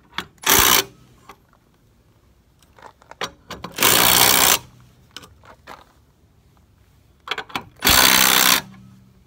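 Cordless impact driver hammering in three short bursts, about four seconds apart, the first briefest, as it runs down the clamp bolts of a mechanical tee on steel sprinkler pipe. Light clicks and knocks of handling in between.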